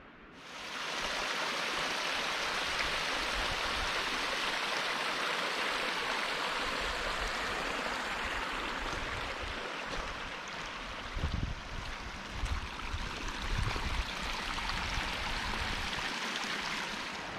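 Mountain stream rushing steadily, with a few low thumps about two thirds of the way through.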